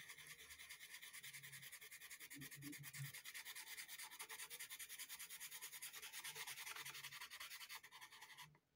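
Derwent pastel pencil scribbling small circles on Pastelmat paper: a faint, fast, even scratching that breaks off just before the end.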